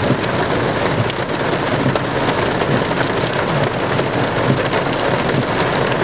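Small pea-sized hail coming down steadily with rain: a dense hiss of falling precipitation dotted with scattered sharp ticks of hailstones striking.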